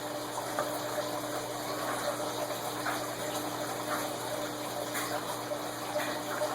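Tightly packed cardboard packaging being handled and pried at: faint scattered scrapes and taps over a steady background hum and rushing noise.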